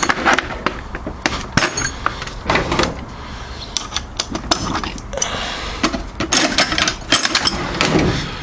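Metal hand tools clinking and rattling: a 7/16 socket, universal joint and ratchet being handled and fitted to reach an exhaust header bolt, in quick irregular clicks over a steady low hum.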